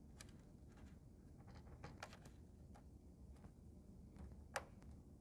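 Faint, scattered small clicks and taps of fingers fitting signal-cable connectors into an all-in-one PC's motherboard, with one sharper click about four and a half seconds in, over a low room hum.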